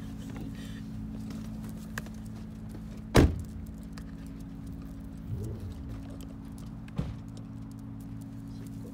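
Steady low hum of idling vehicle engines, with one sharp knock about three seconds in and a couple of faint clicks.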